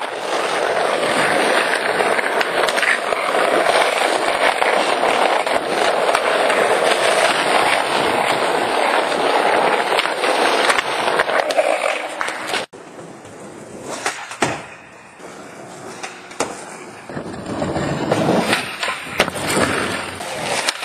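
Skateboard wheels rolling hard over rough pavement, a dense steady noise with small clacks from the board. About 13 seconds in it cuts off abruptly. Quieter stretches follow with a few sharp single board clacks, then the rolling picks up again near the end.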